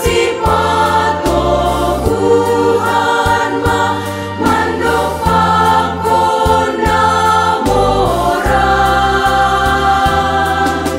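Women's choir singing a church praise song in harmony, with long held notes. Instrumental accompaniment carries low bass notes that change about every second.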